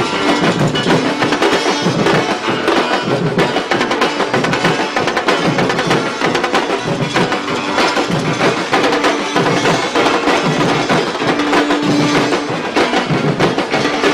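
Afro-Brazilian percussion ensemble playing a continuous, loud batuque groove of drums with sharp clicking wood-like strokes.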